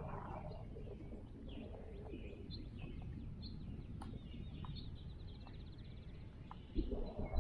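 Songbirds chirping and calling, with one rapid trill about four to five seconds in, over a steady low outdoor rumble. A brief louder noise comes near the end.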